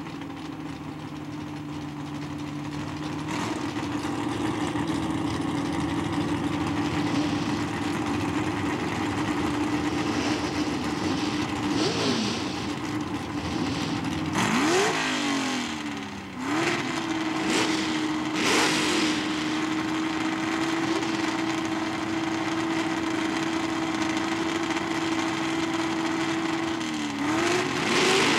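Super Stock first-generation Chevrolet Camaro drag car's V8 held at steady high revs on the starting line. The revs dip and climb back about halfway through, dip again briefly just before the end, and the sound grows louder as the end nears.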